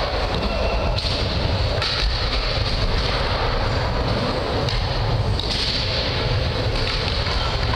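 Skateboard wheels rolling across a wooden mini ramp: a steady rumbling noise whose tone shifts every second or two as the rider carves up and down the transitions.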